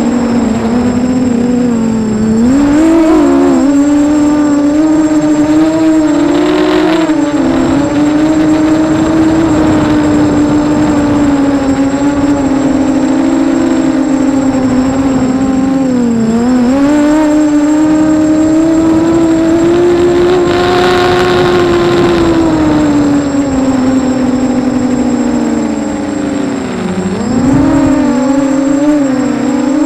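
FPV racing quadcopter's electric motors and propellers whining steadily, the pitch sliding up and down with the throttle and dipping briefly twice, once near the middle and once near the end.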